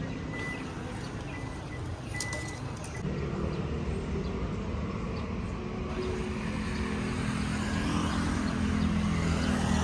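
Outdoor road traffic: a steady low rumble, with a motor vehicle's engine hum building up over the last few seconds.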